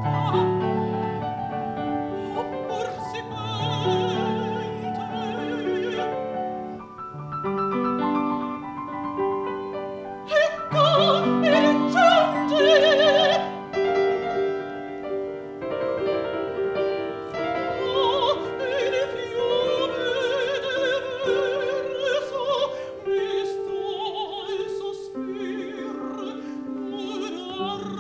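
A female opera singer sings a classical song or aria with vibrato, accompanied by a grand piano. Her loudest, highest phrase comes about halfway through.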